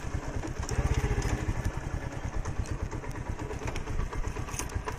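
Small vehicle engine running steadily at low speed, with a rapid low pulsing and a few sharp rattling clicks.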